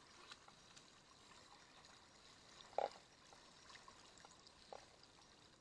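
Faint trickling and dripping of floodwater, with a short drip or plop about three seconds in and a smaller one near the end.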